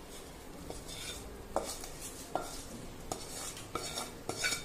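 Wooden spatula scraping fried spice tempering out of a kadhai, with several sharp taps of spatula on pan roughly once a second.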